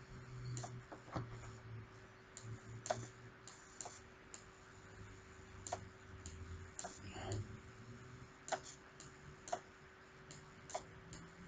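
Faint, irregular clicks and taps of a pen stylus on a touchscreen as digits and slashes are handwritten, roughly one to two a second with uneven gaps, over a faint low hum.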